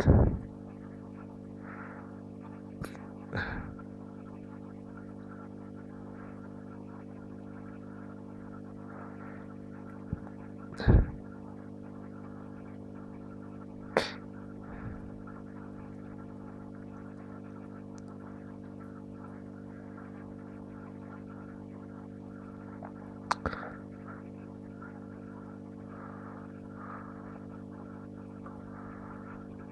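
Steady electrical hum from the aquarium's equipment, with about five short knocks and clicks scattered through it.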